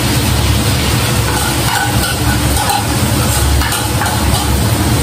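Cooked rice spooned into a hot oiled frying pan, the pan sizzling steadily over a constant low rumble.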